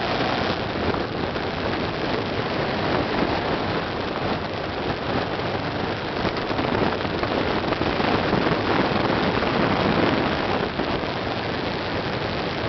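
Honda Africa Twin motorcycle under way on a sandy dirt track, heard from an on-board camera as a steady rush of wind over the microphone with the engine running underneath. The rush grows a little louder around eight to ten seconds in.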